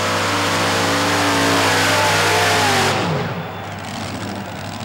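Modified pulling tractor with several supercharged engines running at full throttle under load. The engine note falls about two seconds in, and the sound drops off sharply at about three seconds.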